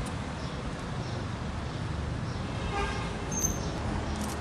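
Steady street-traffic rumble with a short car-horn toot about three seconds in, followed right after by a brief high squeak.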